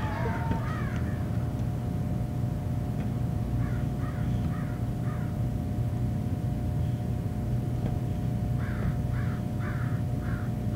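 Crows cawing in two runs of quick, repeated caws, a short run about four seconds in and a longer one from about nine seconds on, over a steady background hum.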